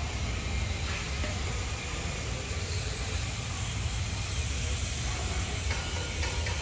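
Steady low rumble and hiss of outdoor background noise, with no distinct event.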